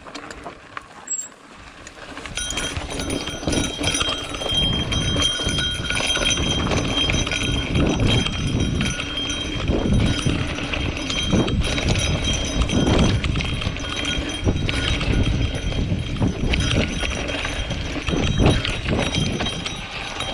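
Mountain bike rolling down a rocky dirt trail: tyres crunching over dirt and stones and the bike rattling over bumps, with rumbling wind on the microphone. It is quieter for the first two seconds, then gets louder as the bike picks up speed.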